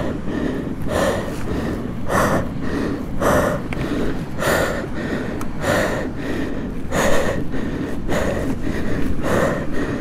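A person breathing hard and rhythmically, about one heavy breath a second, close to the microphone, with a low rumble underneath.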